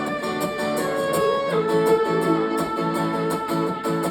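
Live band music without vocals: a strummed guitar with held melody notes over it.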